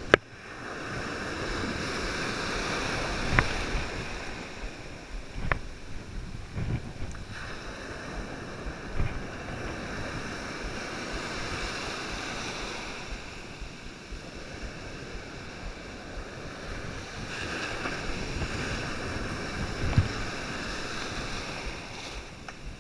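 Ocean surf washing and breaking around a wader in the shallows, swelling and easing as waves come through, with wind on the microphone. A few sharp knocks stand out.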